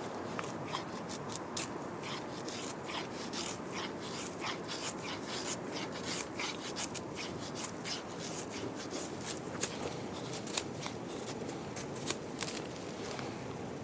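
Wood campfire crackling: many irregular sharp pops and snaps over a steady hiss, with a few louder pops in the second half.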